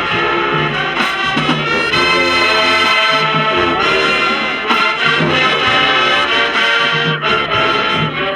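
A marching band playing loud brass music, trombones and trumpets carrying the tune over a pulsing low bass line.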